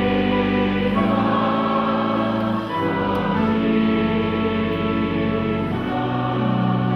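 Church choir singing long held chords with accompaniment, the harmony shifting every second or two.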